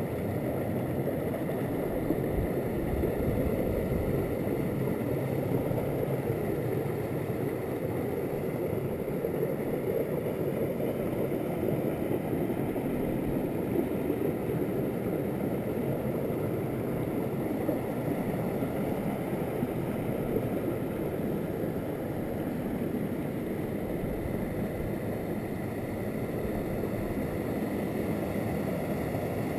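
Mountain stream rushing over small rock cascades and a low waterfall: a steady, low rush of running water.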